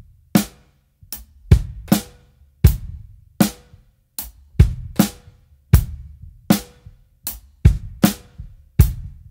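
Drum kit playing a simple groove with no hi-hat: bass drum kicks and a snare backbeat on beats 2 and 4, about one snare stroke every second and a half. Foot stamps and hand claps double the kick and snare.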